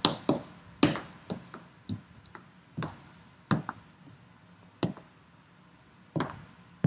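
About ten light knocks and clicks of hard objects, irregularly spaced, several close together in the first second and more spread out after.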